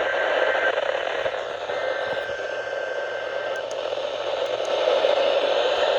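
Radio static from a weather radio receiver: a steady hiss with no voice coming through, and a faint thin whistle that comes and goes in the first half.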